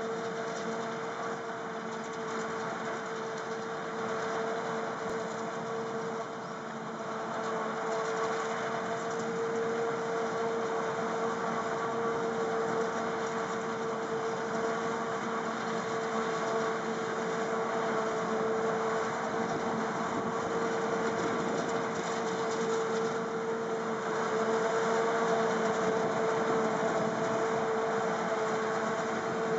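Self-propelled forage harvester chopping maize and blowing it into a trailer, with a John Deere tractor running alongside: a continuous machine drone with a steady high whine, growing louder as the machines come closer.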